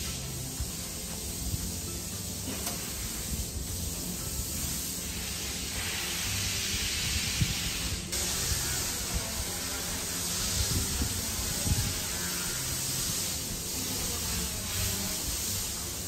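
TEXA Konfort 780R BI-GAS A/C service machine recovering refrigerant from a car's air-conditioning system: a steady hiss of gas flowing through the machine, growing stronger about six seconds in, with a single click about eight seconds in.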